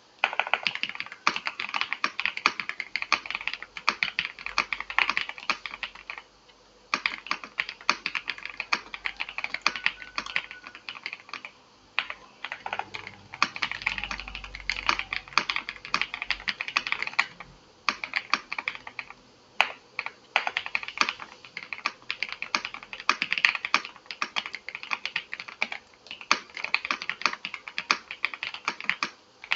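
Typing on a VGN V87 Pro mechanical keyboard: quick runs of key clicks several seconds long, broken by short pauses.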